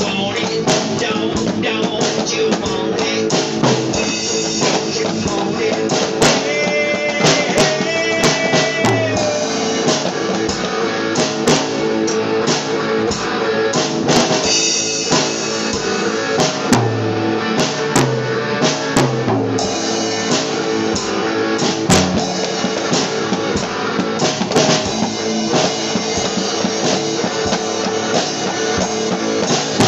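Rock music with a drum kit and electric guitar playing.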